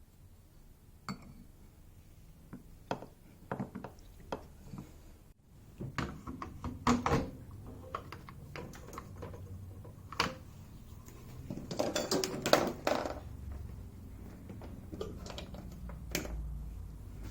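Scattered clicks and knocks of hard parts being handled on a coffee machine, with a short burst of clattering about twelve seconds in.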